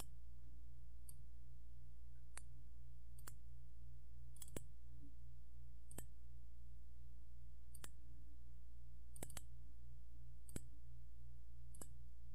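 Computer mouse clicks, about a dozen spaced unevenly and a few in quick pairs, over a steady low electrical hum.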